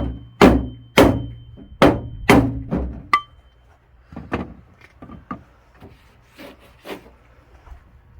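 Hammer blows on a wooden block braced against a car's sheet-metal trunk lid, knocking out a dent along its crease: about six loud knocks in the first three seconds, then lighter knocks until about seven seconds in.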